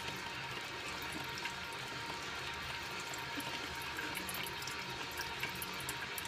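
Drip coffee maker brewing: hot water trickling into the glass carafe, with a steady hiss and many small scattered drips and ticks.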